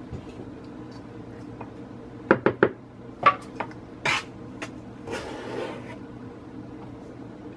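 Kitchen utensils knocking on mixing bowls: three quick knocks of the spatula against the stainless steel bowl a little after two seconds in, then a couple of sharper clinks and a short scraping rustle as a plastic measuring cup works in a bowl of flour. A faint steady hum runs underneath.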